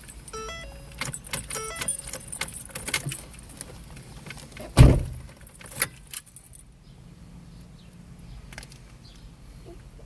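Car keys jangling and clicking as the key is worked in the ignition of a 2009 Ford Focus that won't start, with a few short electronic tones, then one loud thump about halfway through.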